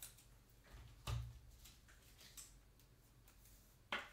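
Faint handling noise in a small room: a few soft clicks and taps, a dull knock about a second in and a sharper click near the end.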